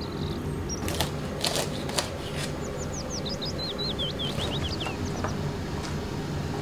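A few sharp knife clicks on a stainless-steel tray as green beans are cut, over a steady low hum. In the middle a small bird twitters a quick run of short descending chirps.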